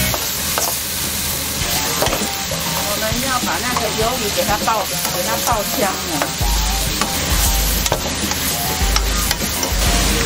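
Dried squid and pork sizzling as they are stir-fried in a frying pan over a gas flame, with a spatula scraping and knocking in the pan. A low hum joins about six seconds in.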